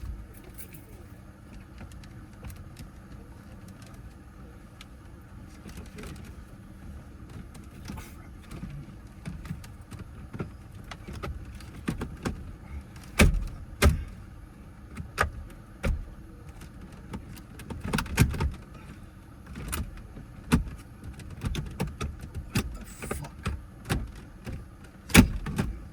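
Handling noise inside a car: scattered sharp clicks and knocks of parts and tools being moved and fitted over a low rumble, sparse at first, then coming thicker and louder from about halfway.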